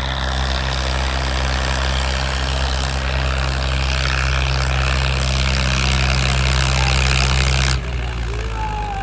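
Massey Ferguson 240 tractor's three-cylinder diesel engine running loud and steady, growing a little louder, then dropping off abruptly about eight seconds in.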